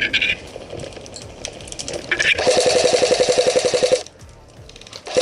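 Airsoft electric gun firing a full-auto burst, a rapid even rattle of shots over a steady gearbox whine, lasting about a second and a half from just before the middle. Another burst starts at the very end, with background music under it.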